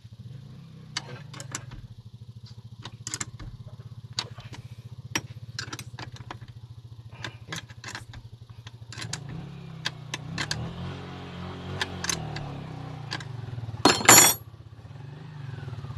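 Light metallic clinks and clicks of a wrench working a car battery's terminal clamp, with one loud, brief clatter about 14 seconds in. A steady low engine hum runs underneath and grows louder for a few seconds past the middle.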